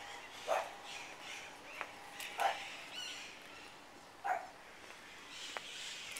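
A dog barking in single barks, three times, about two seconds apart.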